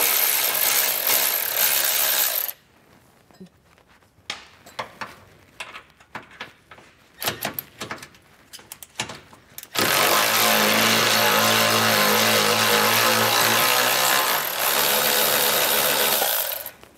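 Cordless electric ratchet running in two long spells, spinning off the 15 mm nuts that hold the truck's factory jounce bumper. Between the spells there are scattered clicks and knocks of the tool and socket being moved to the next nut.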